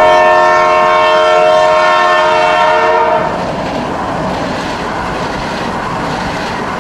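Train horn sounding one long chord that cuts off about three seconds in, then the steady noise of the train running past.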